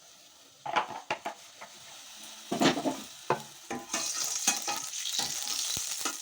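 A few knocks and scrapes of a cooking utensil against a kadai, then about four seconds in a steady sizzling starts in the hot mustard oil.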